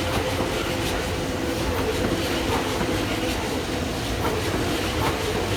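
Kintetsu electric train running past on the tracks, its wheels clacking irregularly over the rail joints, with a steady tone underneath the rolling noise.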